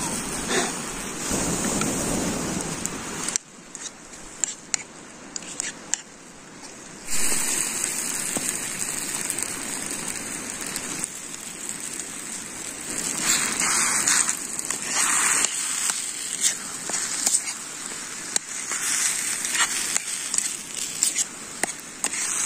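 Food sizzling and crackling in a pan, a steady hiss with scattered sharp pops. The sound drops abruptly for a few seconds early on, then returns.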